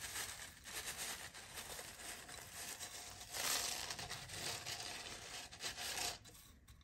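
Granular bonsai soil poured from a plastic bottle into a bonsai pot: a steady, gritty rustle and trickle of grains, loudest about three and a half seconds in and fading out near the end.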